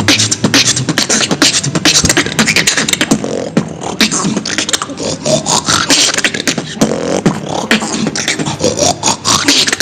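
Human beatboxing: one beatboxer performing a fast, rhythmic beat of percussive mouth sounds mixed with short bass tones.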